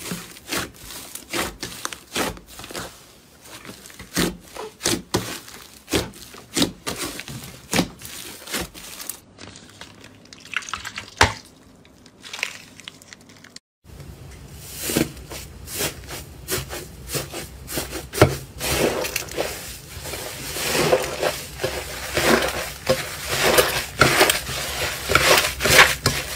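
Slime being squeezed, stretched and pressed by hand, making rapid, irregular sticky clicks and pops. There are two separate slime clips, one after the other, split by a short break about fourteen seconds in.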